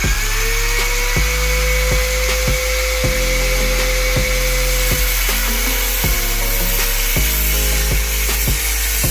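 A power tool starts, its motor spinning up to a steady whine, then changes pitch about halfway through as it works, over background music with a steady beat.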